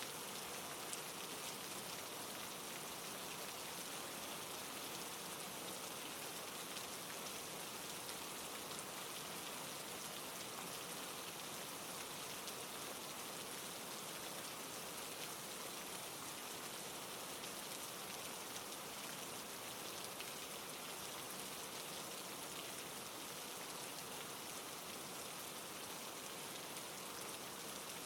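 Steady rain, an even hiss with the fine ticks of single drops.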